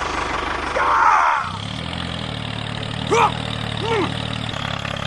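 A small motor of a DIY mini tractor hums steadily, changing to a lower, smoother hum about a second and a half in. Two short rising-and-falling squeaks sound over it near the middle.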